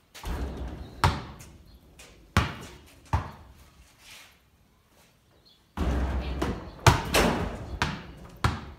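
A basketball hitting the backboard and rim with a clatter, then bouncing on the floor in sharp single knocks inside a corrugated-iron shed. This happens twice: near the start and again about six seconds in.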